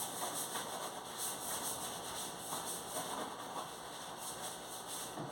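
Wiping and scrubbing on the inside walls of a refrigerator, in a few short, irregular strokes over a steady hiss.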